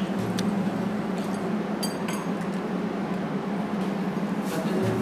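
Steady low hum with a few light metallic clicks and clinks as threaded hanger rod and spring isolator hardware are handled.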